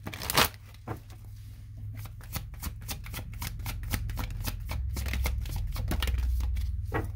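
A deck of oracle cards being shuffled by hand: one louder rustle about half a second in, then a long run of quick card flicks and taps.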